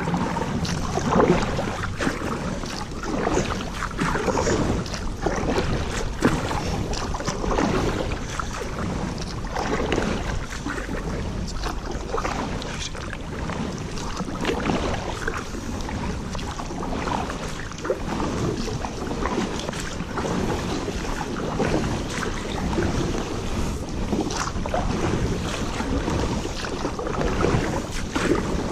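Water rushing and splashing around a canoe on a shallow, rocky river, with wind rumbling on the microphone.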